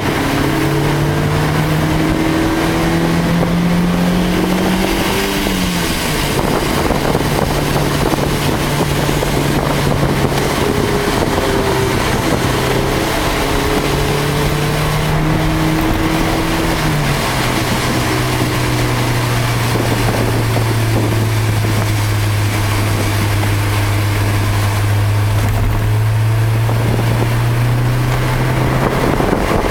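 Car engine running under power, heard from inside the cabin over a steady rush of road, tyre and wind noise on a wet track. The engine note rises slowly and then drops sharply twice, about six and about seventeen seconds in.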